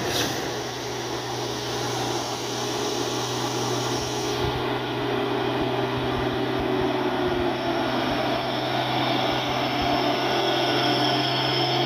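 Diesel engine of a Hino 500 dump truck pulling up a steep grade, a steady drone with a whine, growing louder as the truck comes alongside and passes close by.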